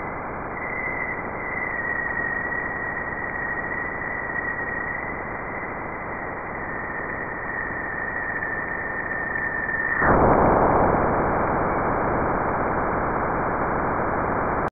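Jupiter sound recorded by NASA's Juno spacecraft, its plasma-wave data turned into sound. It is a steady noise with a thin high tone that slowly sinks in pitch; about ten seconds in, the tone stops and the noise turns suddenly louder and rougher.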